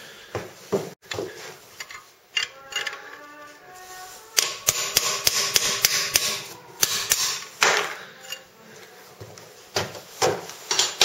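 A hammer tapping a bent metal rod inside a cast-iron 1948 Chevrolet three-speed transmission case to drive out the rear plug of the reverse idler shaft bore. There is a quick run of sharp, ringing metal-on-metal taps in the middle, and a few more near the end.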